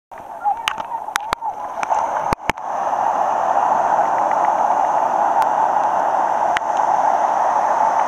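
Surf washing in around the legs and breaking, a steady loud rush of water. In the first couple of seconds, sharp knocks from a phone being handled cut through the water sound.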